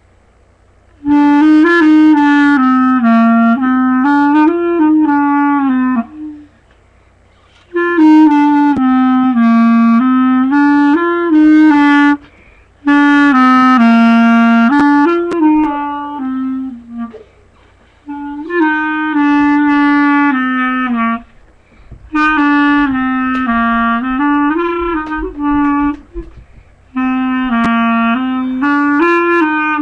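Solo instrumental music: a single woodwind-like melody played in phrases of about three to five seconds with short pauses between them, the same rising-and-falling phrase coming back several times.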